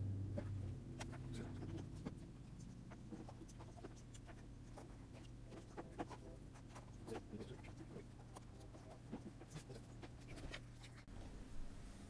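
Faint small clicks and scrapes as the MacBook Pro's aluminium bottom case is fitted and its small screws are driven in with a precision screwdriver, over a low steady hum.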